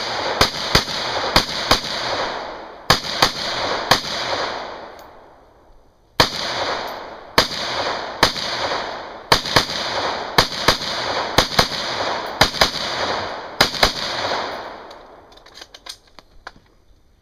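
Rapid strings of gunshots, about two to three shots a second, each string trailing off in a long echo. A pause of about two seconds comes around five seconds in, the shooting stops about fourteen seconds in, and a few faint clicks follow.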